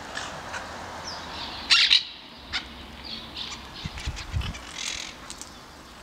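Monk parakeets calling in short, harsh bursts. The loudest burst comes a little under two seconds in, and shorter calls follow through the middle.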